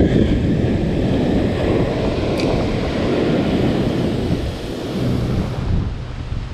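Ocean surf breaking and washing up the sand, with wind buffeting the microphone.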